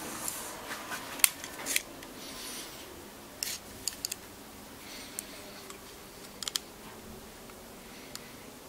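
Scattered sharp metallic clicks and taps from a hand gripper and a digital caliper being handled, the caliper's steel jaws sliding and closing on the gripper's spring and knurled handles. The loudest click comes about a second in, with a quick run of clicks a little later.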